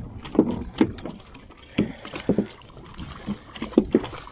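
Irregular hollow knocks and slaps on a fiberglass boat, about eight in all, some coming in quick pairs.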